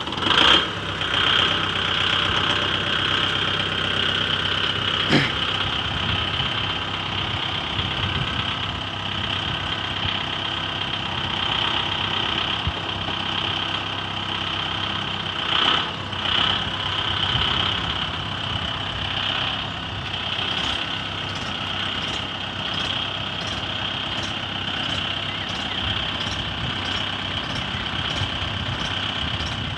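Two diesel tractors, a Kubota MU 5502 and a Mahindra Yuvo 585, both 4WD, running under load together as the Kubota tows the bogged Mahindra out of deep mud on a chain. The engine noise is steady, with a constant high whine over it and a couple of brief knocks.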